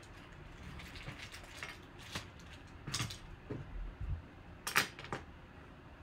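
A scattered series of light clicks, taps and knocks from small objects being handled, with one sharper click about three-quarters of the way through.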